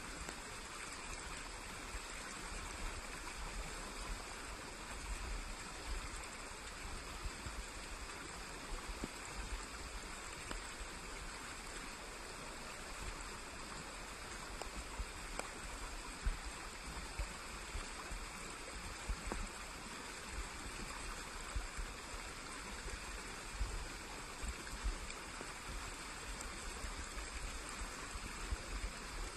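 Small forest stream running steadily over stones.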